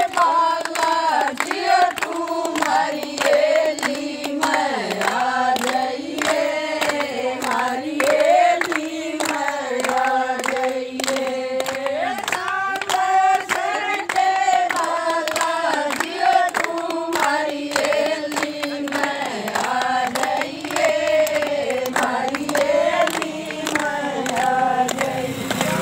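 Women singing a devotional Hindi bhajan to a steady beat of hand-clapping.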